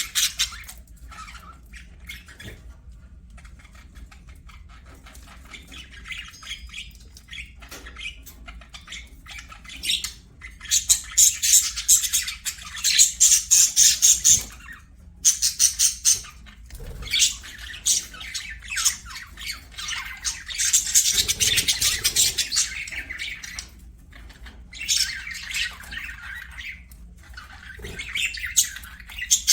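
Budgerigars chattering and chirping in rapid, continuous bursts. The chatter swells into two long, loud spells, one about a third of the way in and one past the middle, with quieter twittering between.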